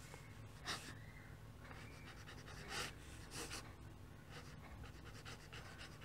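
Faint scratching of a pen nib on paper, in a few short strokes, while a signature is written.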